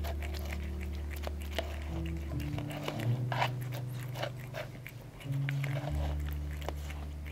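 A cat chewing wet food from a foil tray, its bites giving quick irregular clicks, over background music with long held low notes that change every few seconds.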